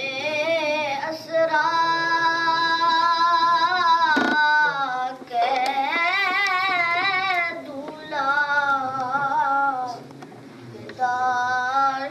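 A boy's voice singing a Salaam, an Urdu devotional poem of greeting to the Prophet, into a microphone. He sings in long held, wavering notes, in phrases with short pauses between them. A short knock sounds about four seconds in.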